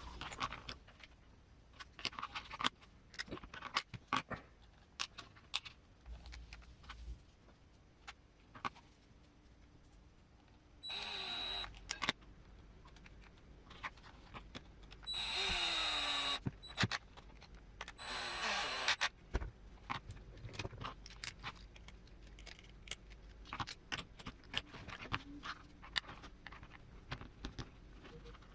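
Small metal parts and tools clicking and clinking as screws go into an RC crawler transmission. Three short runs of a small electric screwdriver, each about a second long, come once about a third of the way in and twice more close together in the middle.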